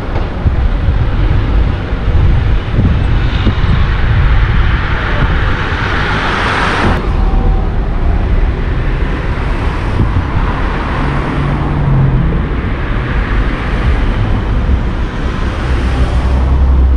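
Road noise from a car driving slowly through town traffic: a steady low rumble with a hiss above it.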